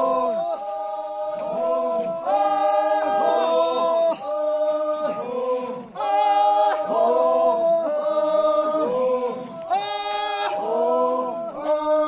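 A group of voices singing a cappella in harmony, several parts holding long steady notes together in phrases of a second or so.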